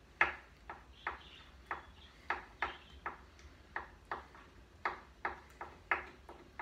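Kitchen knife chopping roasted piquillo peppers on a white plastic cutting board: a run of sharp taps of the blade on the board, roughly two or three a second, unevenly spaced.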